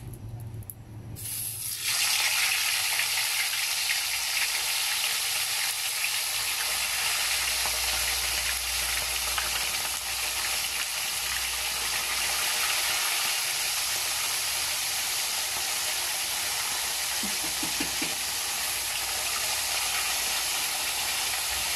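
Whole salted round scad (galunggong) deep-frying in hot oil: a loud, steady sizzle with fine crackling. It starts suddenly about two seconds in, as the fish go into the oil.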